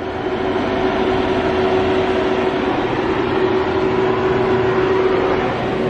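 Steady hum and whir of a powered-up Haas VF-2SS CNC vertical machining centre heard at its open control cabinet, with one constant tone over an even running noise.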